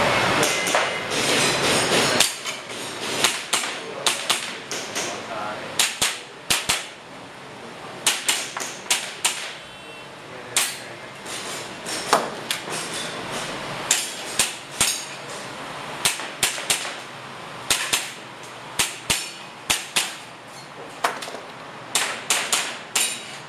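Airsoft guns firing a timed IPSC practical-shooting course: sharp snapping shots, often in quick pairs, in short strings with brief gaps between them, for about twenty seconds. The shots start about two seconds in, after a short noisy rush.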